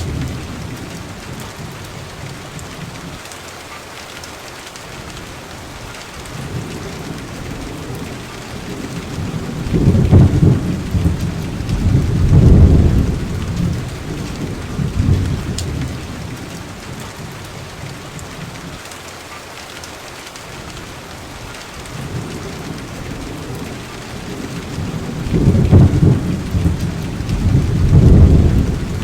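Steady rain with rolling thunder. Two long, deep rumbles swell up, about ten seconds in and again near the end, each rising to two peaks before dying back into the rain.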